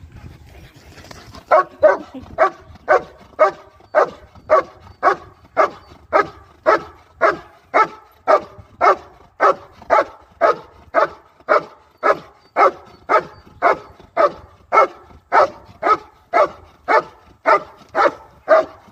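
German Shepherd dog barking steadily, about two barks a second, starting about a second and a half in. This is the hold-and-bark of IGP protection work: the dog barks at the helper in the hide without biting.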